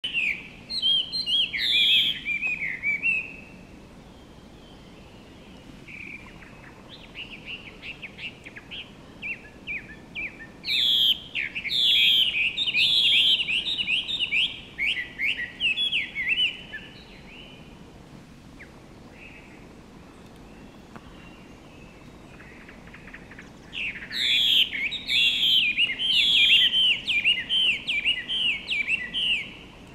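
Chinese hwamei singing: loud, fast runs of rising and falling whistled notes in three bouts, with pauses of several seconds between.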